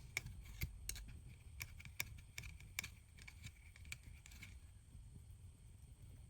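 Light, irregular clicks and scrapes of a small hand tool working against the inside of an iPhone 13's housing while the old battery adhesive is removed. There are about a dozen clicks, spaced unevenly, and they thin out after about four and a half seconds.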